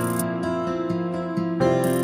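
Instrumental background music, soft and new-age in style, with held notes and a change of chord about one and a half seconds in.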